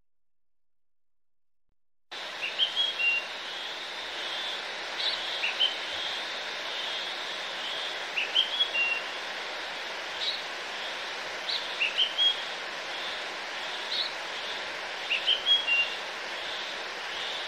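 Near silence, then about two seconds in a recording of birds chirping starts abruptly: short high whistled phrases repeating every second or two over a steady background hiss.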